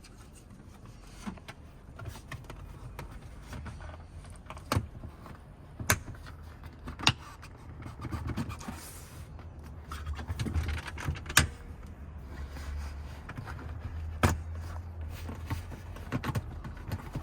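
Hands working on a minivan seat's metal frame and cushion fittings: rustling handling noise broken by sharp metallic clicks and knocks, about six louder ones spread through.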